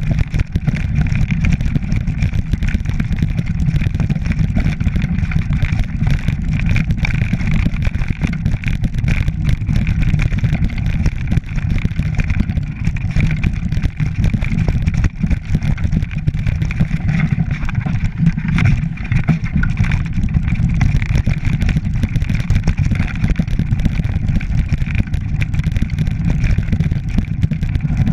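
Mountain bike riding down a loose rocky track: a constant low rumble with dense rattling and knocking as the tyres and frame go over the stones.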